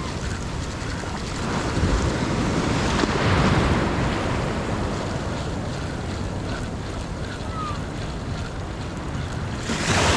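Ocean surf washing on the beach with wind buffeting the microphone; the waves swell louder about two seconds in and again near the end.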